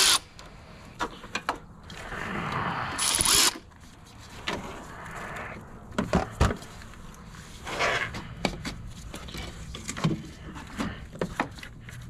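Cordless ratchet whirring as it undoes a battery terminal nut, briefly at the start and again for about a second and a half a couple of seconds in. Then come scattered clicks and knocks of the terminal clamp and cables being worked by hand.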